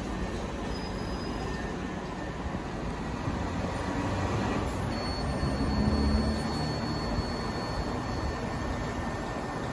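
Southern Class 377 Electrostar electric multiple unit moving slowly along the platform, its wheels rumbling on the rails. A thin, steady high-pitched squeal is held for a few seconds about halfway through.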